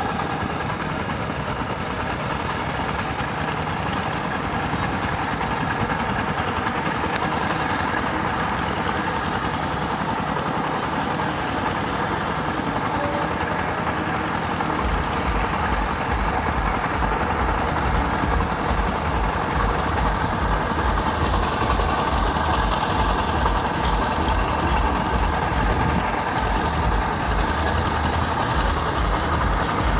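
Single-cylinder diesel engines of walk-behind two-wheel tractors running steadily under load in a flooded paddy. From about halfway through, a low, even engine pulse comes in and the sound grows slightly louder.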